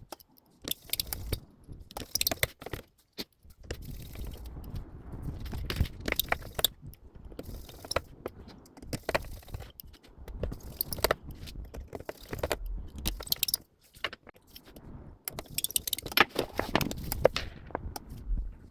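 Small repair tools and phone parts clicking, scraping and clinking irregularly as a smartphone is worked on by hand.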